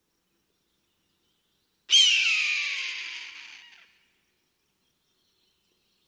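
A single loud eagle scream about two seconds in: a harsh call that slides down in pitch and fades away over about two seconds.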